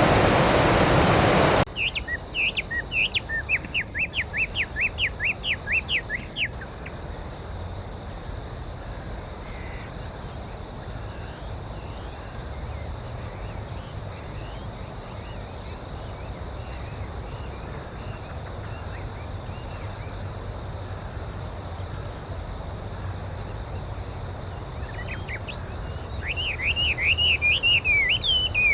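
Chinese hwamei (laughingthrush) singing: loud, rapid runs of rising and falling whistled notes, then a long quieter spell with faint calls, then loud song again near the end. Rushing water fills the first second or two.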